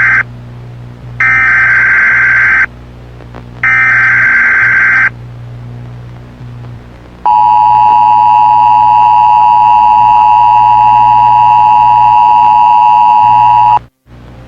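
Emergency Alert System header. The end of one burst of screeching digital data is followed by two more full bursts, each about a second and a half long. After a short pause comes the EAS two-tone attention signal, a steady harsh dual-tone beep held for about six and a half seconds that cuts off sharply. A low hum runs underneath.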